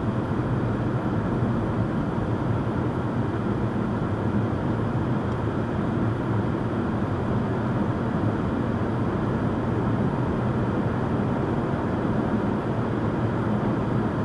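Steady road noise from a vehicle driving at speed, heard inside the cabin: the hum of the engine and tyres on asphalt, without change.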